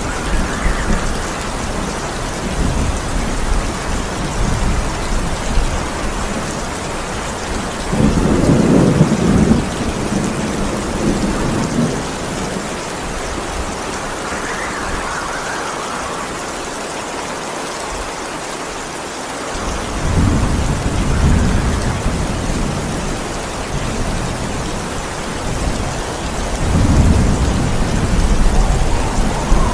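Steady heavy rain with rolling thunder: low rumbles swell up about a quarter of the way in, again past the middle and near the end, with a quieter stretch of just rain in between.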